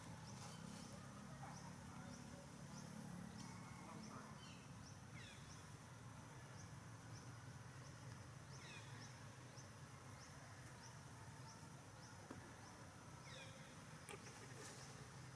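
Faint high animal chirps: a few short falling calls a few seconds apart, over a faint, regular high chirping about once a second.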